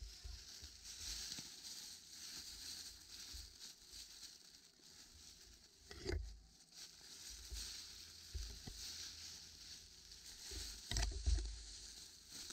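Faint footsteps shuffling and crunching through dry fallen leaves, with low thumps that are loudest about six seconds in and again near eleven seconds.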